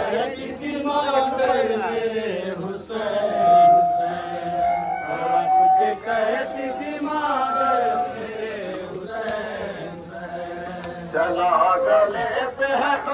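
Men chanting a nauha, a Shia mourning lament for Husain, in long, drawn-out melodic lines with sustained held notes.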